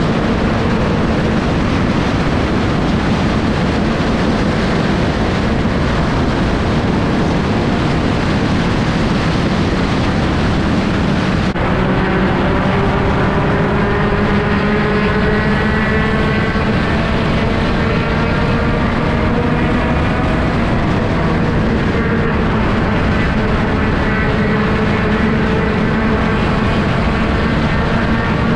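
Sport compact race car's engine heard from on board, running loud at moderate, steady revs with road and wind noise. About a third of the way through the sound changes abruptly, and from then on the engine note stands out more clearly, drifting slowly up and down in pitch.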